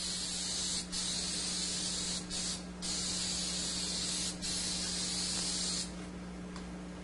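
Aerosol spray adhesive hissing from a can in several long bursts with short breaks, stopping about six seconds in, as the glue is sprayed onto the slate to hold the pool table cloth.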